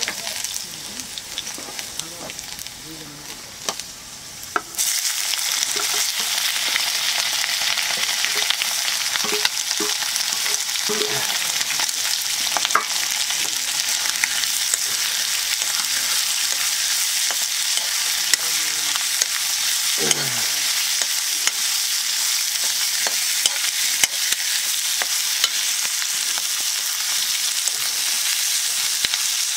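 Meat frying in hot oil in a steel wok, sizzling, while a ladle stirs and scrapes through it. The sizzle jumps suddenly louder about five seconds in and then holds steady, with scattered light clicks of the ladle against the pan.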